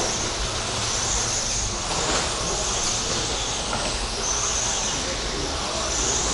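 Electric RC stadium trucks with 13.5-turn brushless motors running laps on a track: a steady hiss of tyres and motors, with high motor whines that swell and fade as trucks pass.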